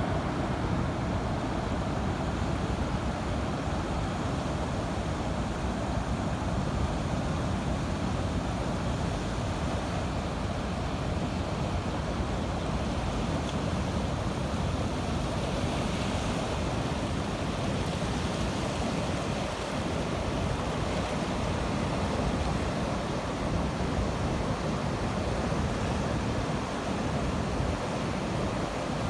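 Sea surf washing steadily, with wind buffeting the microphone. The wash swells slightly about halfway through.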